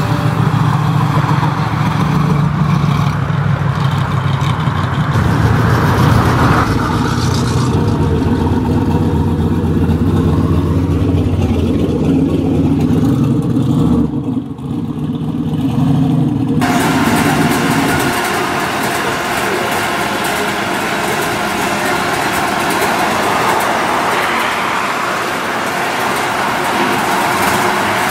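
Pro street muscle cars' big modified V8 engines running loud as the cars drive slowly by, in several clips joined by abrupt cuts about halfway through and again a couple of seconds later.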